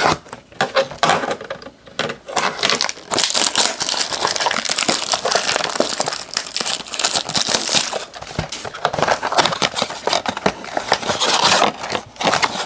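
Plastic wrapping on a trading-card blaster box crinkling and crackling as it is torn off and the box is opened.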